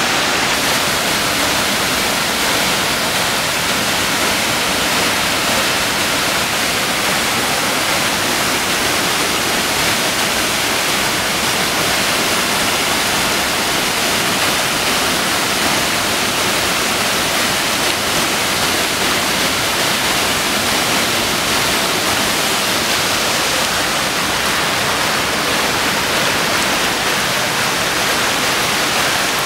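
Creek water rushing over rocks and a small cascade, a steady rush of white water.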